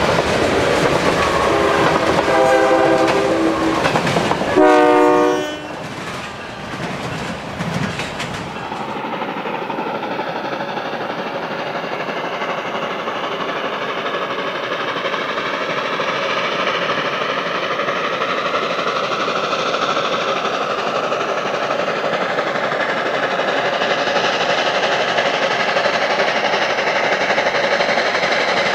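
Tank cars of a freight train rolling past on jointed track, clacking steadily, while the China Railways QJ 2-10-2 steam locomotive's whistle sounds twice from up ahead, the second blast louder. After a cut, the approaching QJ is heard working hard from a distance, a steady sound that slowly grows louder as it nears.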